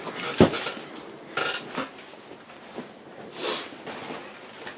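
Cardboard guitar box being handled and set down: a sharp knock about half a second in, then a couple of lighter bumps and a short scraping rustle.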